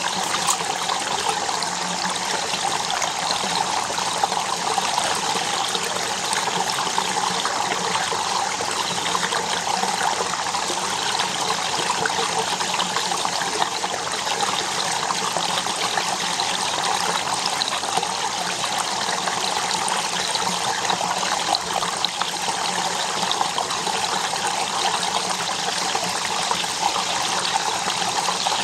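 Shallow stream water flowing and trickling steadily, a continuous even wash of sound with no pauses.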